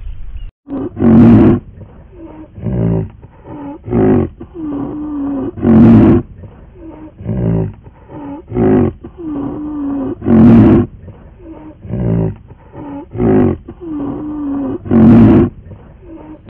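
Loud, deep roaring calls from a large animal, repeated about every second and a half, with every third or so call much louder than the rest.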